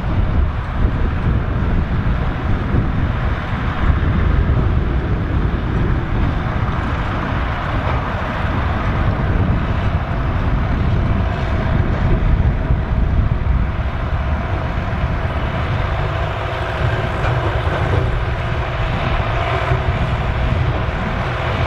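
Massey Ferguson 3070 tractor's diesel engine running steadily at working speed, with a thin steady whine over it in the second half.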